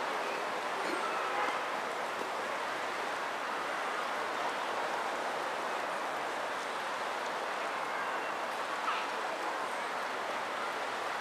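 Steady outdoor background noise in a woodland, even and unchanging, with a few faint, short bird chirps.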